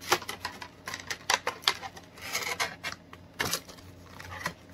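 Clear plastic packaging being handled: irregular crinkles and sharp clicks, with a longer rustle about two seconds in.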